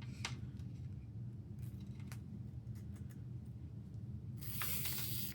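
Album contents being handled: a few light clicks and taps, then a rustle lasting about a second near the end, over a steady low hum.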